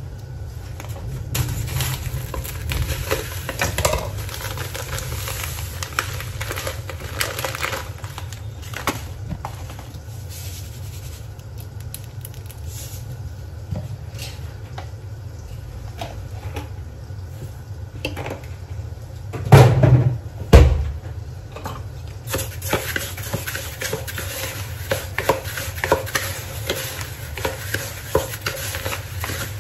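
Dry couscous being handled: a plastic packet rustling and the grains poured into a glass bowl, then rubbed and stirred by hand, which gives a dense, continuous crackle over the last third. There are two loud knocks about two-thirds of the way through, and a steady low hum throughout.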